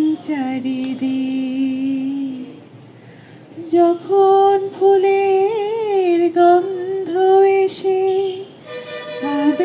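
A woman singing a slow Bengali song into a handheld microphone, holding long notes with a slight waver, with a pause of about a second a few seconds in.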